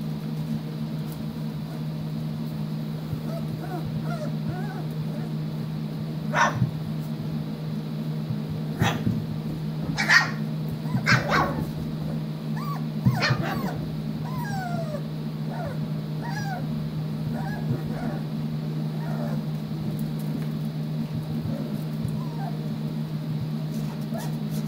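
Puppies about four weeks old whining and yipping in short high squeaks that slide up and down in pitch, with a few louder yelps between about six and thirteen seconds in, over a steady low hum.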